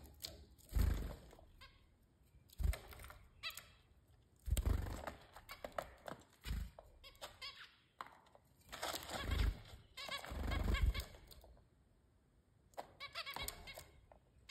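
Zebra finches calling with short nasal beeps, some in quick runs, mixed with a few dull thumps.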